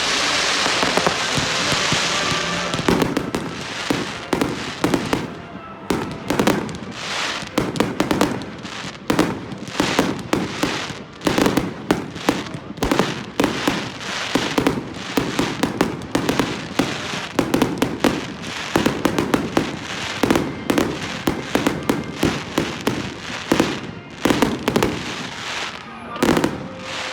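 Fireworks going off: a steady hiss for about the first three seconds, then a dense run of sharp bangs and crackles, several a second.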